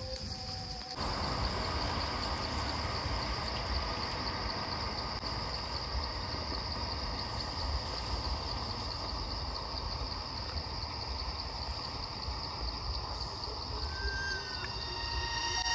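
Insects buzzing in a steady high-pitched drone, over a broad rushing noise that comes in about a second in and holds steady.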